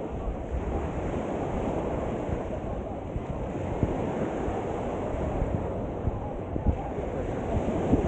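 Small surf waves breaking and washing up the sand in a steady rush, mixed with wind buffeting the microphone in a low rumble.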